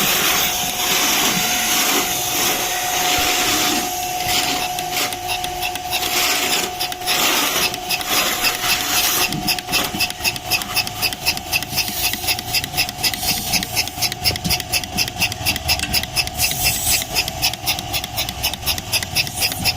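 Milking machine running: a steady hum from the vacuum pump with hissing air in the first half, then a fast, even pulsing from about halfway through as the pulsator works.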